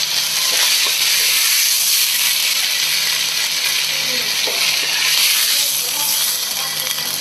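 Stir-fried gluten and vegetables sizzling with a steady hiss as they are pushed out of a hot wok with a wooden spatula, with a few light scrapes and taps of the spatula.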